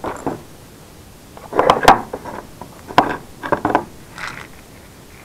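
Jars and small parts being handled on a wooden workbench: several short clusters of knocks and clinks, the sharpest about two seconds in.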